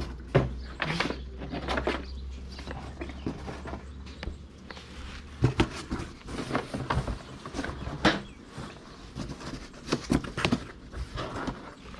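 Irregular knocks, clicks and rustling from objects being picked up, moved and set down, with no steady rhythm.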